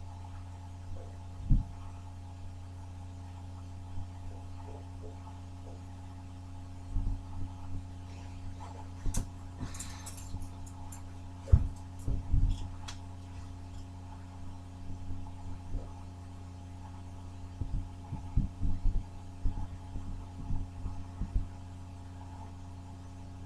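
A steady low electrical hum runs under scattered knocks, bumps and brief rustling, the handling noise of someone moving around in a cramped space. The loudest knocks come about a second and a half in and around the middle.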